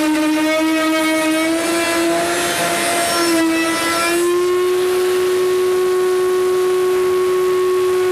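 Table-mounted plunge router running at high speed while a wooden board is fed past the bit to cut a groove; its whine sags and wavers slightly under the load of the cut. About four seconds in, the cut ends and the motor settles to a steady, slightly higher free-running whine.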